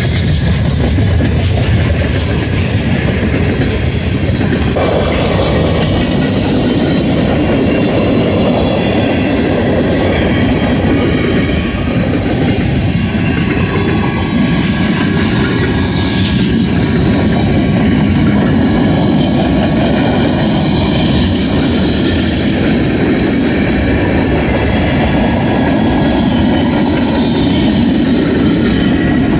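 Freight train cars rolling past a road crossing: a steady, loud rumble and rattle of steel wheels on the rails.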